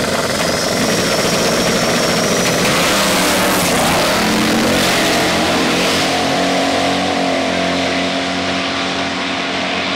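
Twin-turbo LS V8 Jeep Wrangler drag racing: the engine is held at revs at the line, then launches about three seconds in and runs hard down the strip, with the opponent car's engine alongside. A thin high whistle, rising slightly, sounds over the first couple of seconds.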